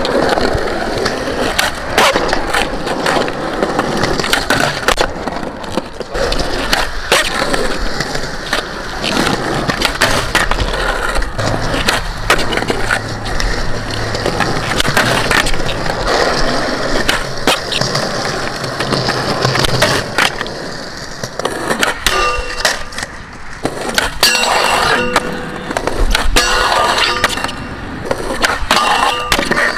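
Skateboard wheels rolling on a concrete skatepark surface, with repeated sharp clacks of the board popping and landing during flatground tricks. Music plays along, with clear notes more prominent in the last several seconds.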